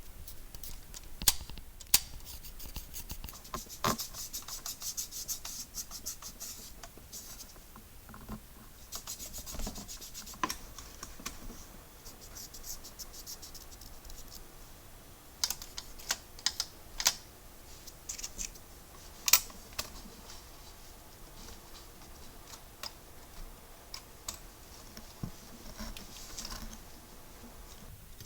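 Hand-cleaning of a vintage manual typewriter's parts: stretches of scratchy brushing or scrubbing, with scattered sharp clicks and taps of small metal parts.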